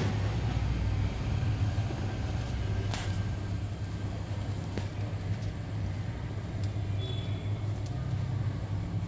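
Hot-air rework station blowing with a steady low hum and hiss, reflowing the fluxed solder balls on a reballed mobile CPU. There is a light tap about three seconds in.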